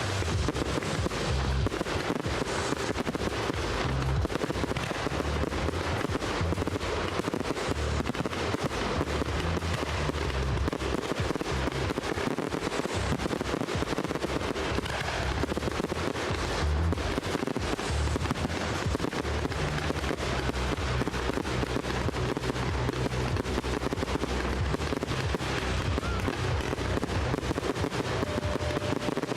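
Large professional fireworks display going off in a dense, continuous barrage of bangs and crackle with no let-up, with music playing alongside it.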